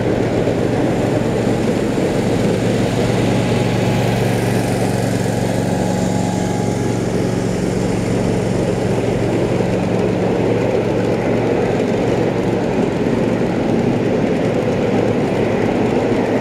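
Long 7½-inch-gauge riding train rolling past on steel rails, a steady rumble of wheels on track. A steady engine hum swells from about three to ten seconds in as the mid-train helper locomotive goes by.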